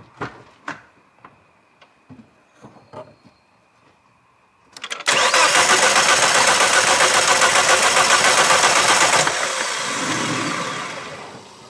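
A few light clicks, then the 2006 Volvo V70's 2.4-litre non-turbo five-cylinder engine is cranked on the starter for about four seconds with an even pulsing rhythm as each cylinder comes up on compression. This is a compression test on the fifth cylinder: the engine is turned over without starting, then the sound dies away over about two seconds.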